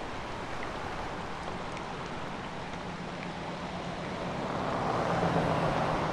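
A car driving past on a wet road: the hiss of wet tyres over an even wash of noise, swelling about five seconds in.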